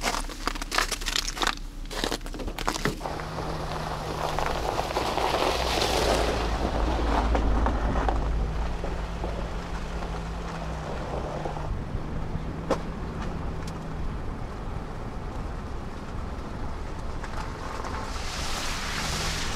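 Footsteps crunching on icy, packed snow for the first few seconds. Then a car driving over a snowy, slushy road, heard from inside the car: a steady low engine hum with tyre and road noise.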